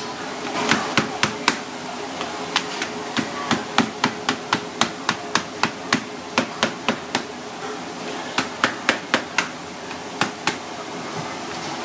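Heavy cleaver chopping through cooked coconut crab legs on a cutting board: sharp chops in quick runs of about three a second, with short pauses between the runs.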